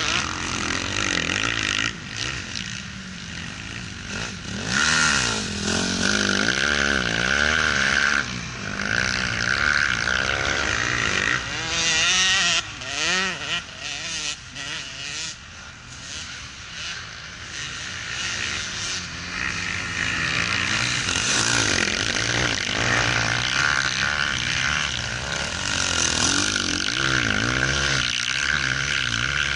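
Motocross bikes running on a dirt track, their engines revving up and down as the riders work the throttle and shift, the pitch repeatedly rising and falling. Louder stretches come and go as bikes pass nearer, with a quieter spell around the middle.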